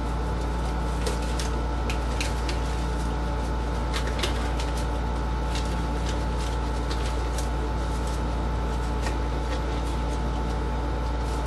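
A steady low mechanical hum, with scattered light clicks and crinkles as a disposable glove is pulled onto a hand.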